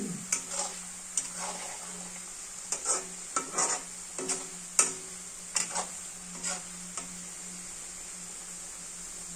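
Shredded potato sizzling as it deep-fries in oil in a wok, while a perforated metal skimmer stirs it, clinking and scraping against the pan. The clinks and scrapes stop about seven seconds in, leaving the steady sizzle.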